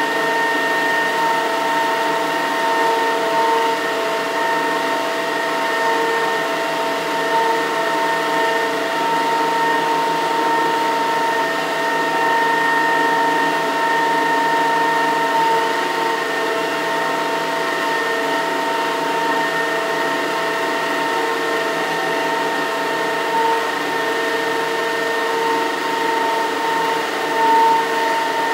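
Single-jet, vertical-axis Pelton micro-hydro turbine and its directly coupled permanent-magnet generator running steadily. It makes a steady whine of several fixed tones over an even rushing noise.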